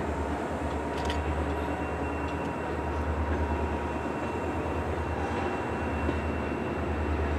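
Slow-moving freight train of covered hoppers and a caboose rolling along the rails, with the steady low drone of a CSX GP40-2 diesel-electric locomotive running throughout. A single sharp clank comes about a second in.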